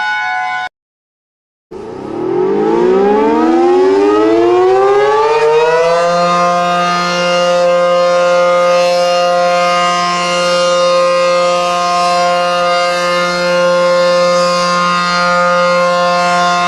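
Warning siren winding up: a chord of several tones rises in pitch together over about four seconds, then holds as a steady wail. Just before it starts, a steady alarm chord cuts off and there is about a second of silence.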